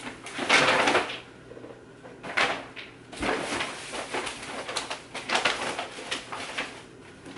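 Rustling and light knocking of objects being moved and handled, in short irregular bursts. The loudest rustle comes within the first second.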